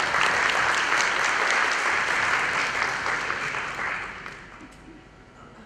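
Audience applauding: dense clapping that holds steady, then dies away over the last two seconds.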